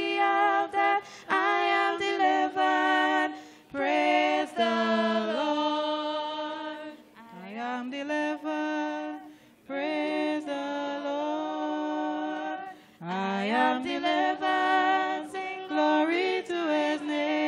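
Unaccompanied singing of a gospel hymn, with long held notes and upward slides into new phrases.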